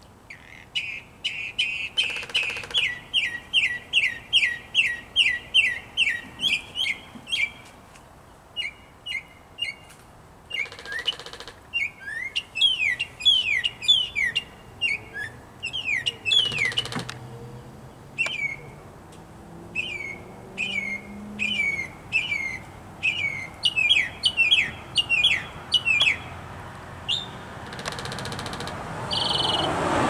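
Mockingbird singing: runs of quick, down-slurred whistled notes, each phrase repeated several times in a row before it switches to a new one, with short gaps between runs.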